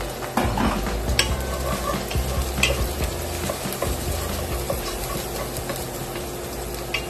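Chopped onion sizzling in olive oil in an enamelled pot as a wooden spoon stirs it, with a few sharp scrapes and knocks of the spoon against the pot. This is the onion being sautéed as the base of the dish.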